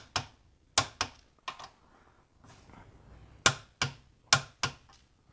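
Click-type torque wrench clicking off as bolts are torqued to 44 foot-pounds: sharp metallic clicks, mostly in quick pairs, about half a dozen times.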